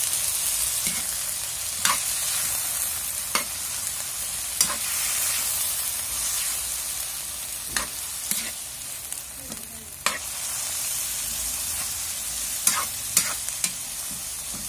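Chicken and squid balls sizzling in a hot wok while a spatula stirs them, with a steady hiss and occasional sharp clicks of the spatula against the pan.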